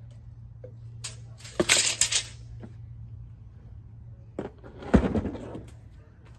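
Two short bursts of scraping and clattering handling noise, about a second and a half each, over a steady low hum.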